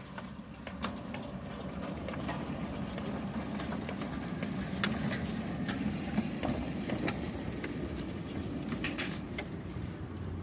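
A 7¼-inch-gauge miniature train passing close by: a low running hum with the wheels clicking over the track, swelling toward the middle and easing off as the cars roll away.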